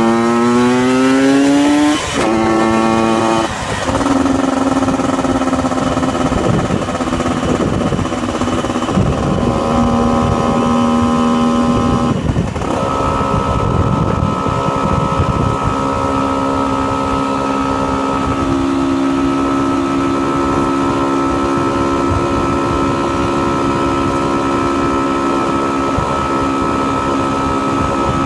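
Honda NSR two-stroke motorcycle engine heard from the rider's seat, revving up through the gears with upshifts about two and three and a half seconds in. It then runs at a steady cruising speed, with one more small change in pitch about halfway through.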